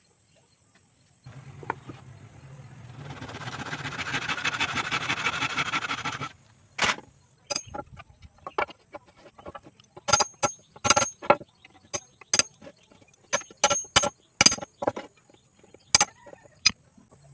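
A small power tool runs for about five seconds, its noise building in the middle. It stops, and a series of irregular sharp knocks on wood follows, typical of carpentry work on a window frame.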